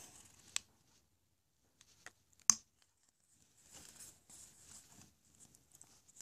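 Small sounds of craft tools being handled on a tabletop: a few light clicks, the sharpest about two and a half seconds in, then a soft scratchy rustle for about two seconds.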